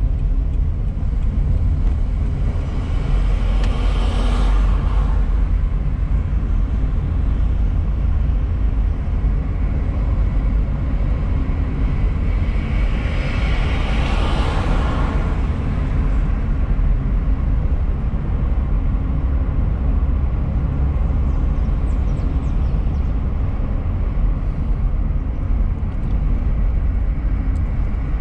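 Steady road noise of a car driving, heard from inside the cabin: a low rumble of engine and tyres with a hiss above it. The noise swells up twice, about four seconds in and again about fourteen seconds in.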